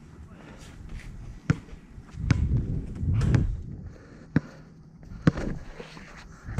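A basketball thudding sharply on the court three times at uneven gaps, about one and a half, four and a half and five and a half seconds in, with bursts of low rumbling noise between the first two.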